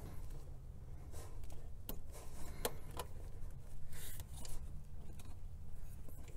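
Faint clicks and rubbing of hands and a tool working the spring clip and vacuum hose off a fuel pressure regulator, a few sharp ticks in the first four seconds over a low steady hum.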